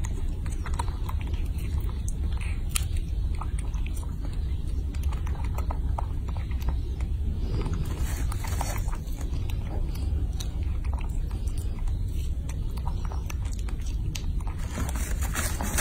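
Baby macaque chewing and biting into strawberries: scattered small mouth clicks and smacks over a steady low hum.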